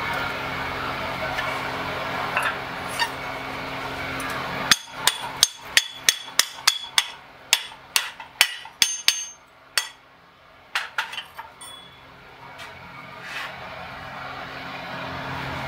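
Hand hammer striking a red-hot steel bar held in tongs on an anvil, bending it around a pipe mandrel: a quick run of about a dozen sharp, ringing blows, two or three a second, then a short pause and a few more blows.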